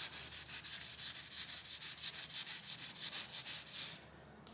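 Fast back-and-forth hand scrubbing on the cast-iron ram of a Bridgeport milling machine, cleaning off rust. There are about seven hissy strokes a second, and they stop about four seconds in.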